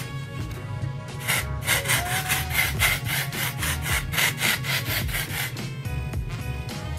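Bumble and Bumble aerosol texturizing spray hissing onto hair in a rapid run of short bursts, about four or five a second.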